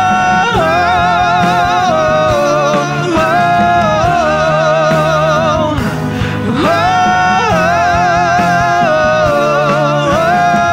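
Two male singers in a duet holding long, wavering high notes without clear words, swooping up into each new note, over a live band of keyboard, congas and electric guitar.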